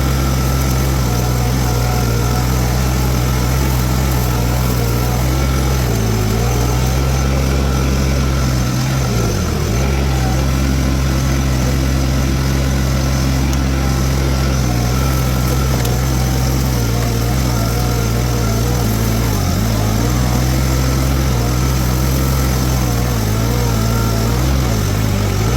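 Diesel engine of a Toro TX1000 mini skid steer running steadily at working speed, powering a Virnig V20 brush mower. Its pitch dips briefly a few times, as when the engine comes under load.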